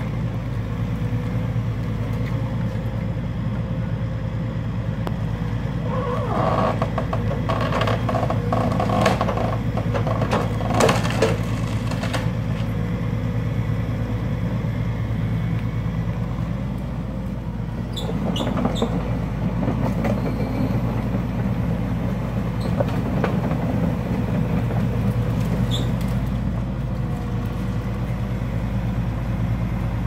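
Tracked excavator's diesel engine running steadily under load, with clusters of sharp cracks and knocks as its tree-shear head grips and cuts trees, busiest about a quarter of the way in and again just past the middle.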